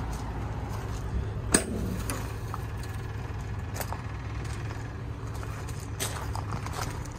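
Metal service-body compartment door latch clicking open with a sharp snap about one and a half seconds in, followed by a few lighter clicks and knocks, over a steady low rumble.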